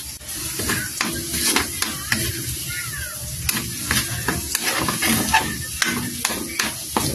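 A spatula stirring and scraping in a wok of sizzling sauce, knocking against the pan many times in quick succession.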